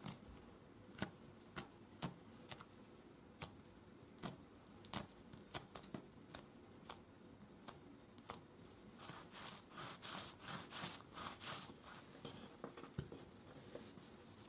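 Bagel dough being handled on a wooden board: faint scattered clicks and taps as fingers press and fold it, then about nine seconds in a quick run of soft rubbing strokes as the dough is rolled into a log.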